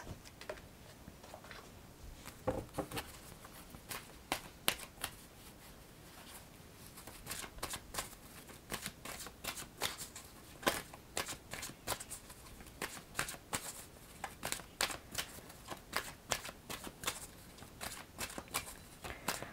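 A deck of oracle cards shuffled by hand: a run of soft card flicks and slaps, scattered at first and then coming thick and fast from about a third of the way in.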